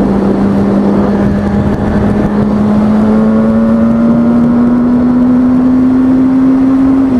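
2003 Kawasaki ZX-6R 636's inline-four engine pulling under steady throttle, its pitch climbing slowly, then dropping suddenly at the very end as it shifts up a gear. Strong wind rushes over the microphone throughout.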